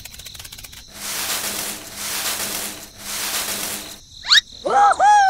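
Cartoon sound effects: three swells of rustling, hissing noise, then a quick rising whistle and a high squeaky cartoon voice near the end.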